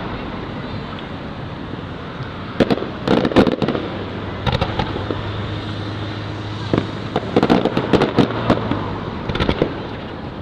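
Fireworks going off in a display: several quick clusters of sharp crackling bangs, the busiest about a third of the way in and again near the end, over a steady background din.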